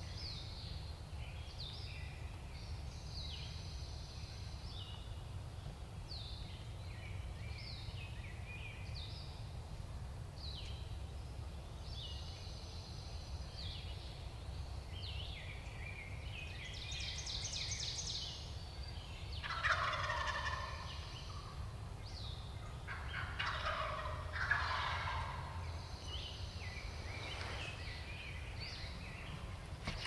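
Wild turkey gobbler gobbling twice, each a rapid rattling call just past the middle, over songbirds chirping throughout in the dawn woods.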